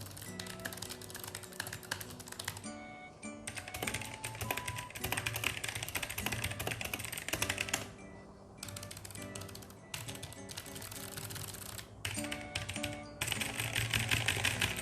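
Rapid typing on clicky mechanical keyboards, in several runs of dense key clicks broken by short pauses, over background music.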